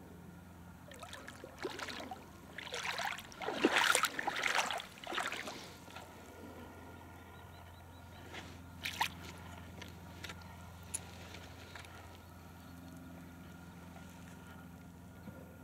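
Shallow pond water splashing and sloshing as something is moved through it, loudest about four seconds in, then a few small splashes and drips.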